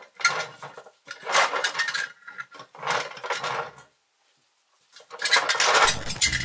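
Unpacking and handling of a parcel holding an old toy trailer: bursts of rustling and handling noise, a quiet pause of about a second, then a louder burst near the end, where a low rumble joins in.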